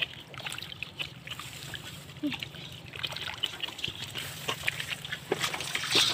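Hands groping through shallow muddy water: small splashes, sloshing and trickling water, with scattered wet clicks that grow busier about halfway through.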